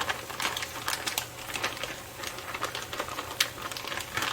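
Irregular clicks and scrapes of a utensil against a container and frying pan as food is added, over the crackle of food frying in the pan.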